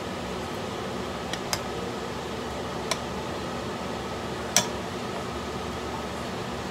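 A metal spoon clinks against a stone-coated wok four times while stirring shrimp in tomato sauce, the loudest clink about four and a half seconds in. Under it runs a steady fan-like hum and hiss.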